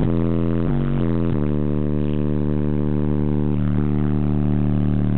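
Four old-school 15-inch Rockford Fosgate subwoofers playing deep bass very loudly. The bass steps to new notes twice in the first second and a half, then holds one note.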